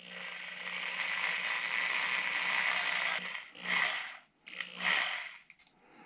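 Corded electric drill spinning a drill bit while a power-switch button cover is held against it by hand to widen its opening. It runs steadily for about three seconds, stops, then runs again in two short bursts.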